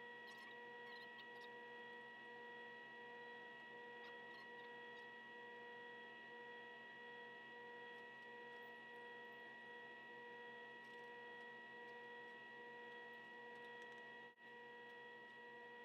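Near silence: a faint steady electrical hum with a high whine, and a few faint clicks.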